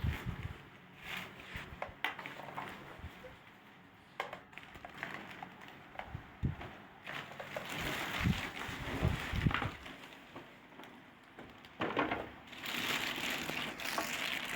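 Handling noises: scattered clicks, knocks and light thumps, with some crinkling, as a portable sewing machine and its parts are handled. A steady noise starts near the end.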